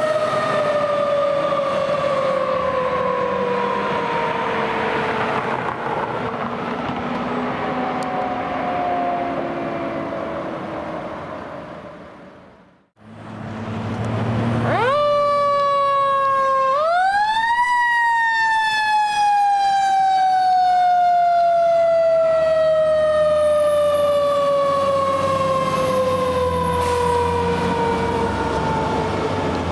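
Fire apparatus mechanical sirens over diesel engine noise. A siren coasts slowly down in pitch and fades out about halfway through. Then a second siren winds up in two quick steps and coasts down slowly for the rest of the time.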